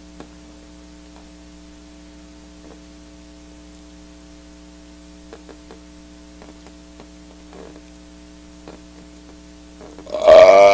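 Steady electrical mains hum with faint scattered clicks. Near the end, a loud, high-pitched vocal outburst from a person breaks in.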